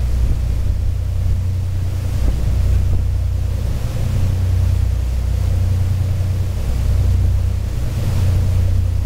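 Wind buffeting the microphone on the open upper deck of a passenger ferry under way: a loud, steady, fluttering low rumble, with the rush of the sea beneath it.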